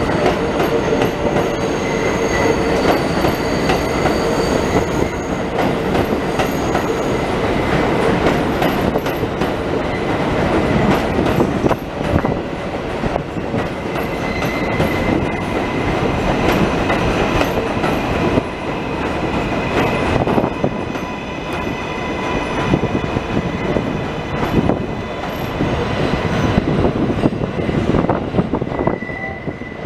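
New York City Subway R188 cars running on the elevated steel structure: a continuous rolling rumble and clatter of wheels on rails, with high wheel squeal that comes and goes.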